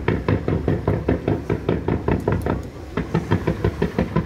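Firework barrage going off in a rapid volley of bangs, about five or six a second, with a brief lull a little before three seconds in.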